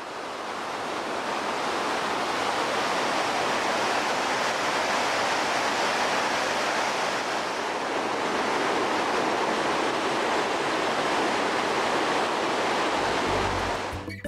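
Steady roar of Victoria Falls, a dense even rush of falling water that fades in over the first second or two. Music comes in at the very end.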